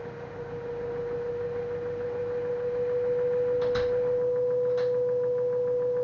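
LG F1089ND direct-drive washing machine motor whining as the drum speeds up: a steady high tone that rises slightly in pitch and grows louder. Two short knocks about a second apart past the middle, followed by a fast, light ticking.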